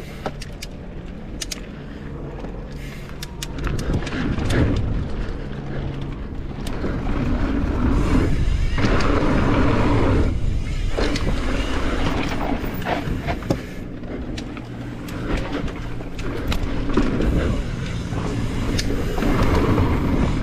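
Mountain bike being ridden on a dirt trail: a steady rushing noise with scattered clicks and rattles, growing louder about eight seconds in.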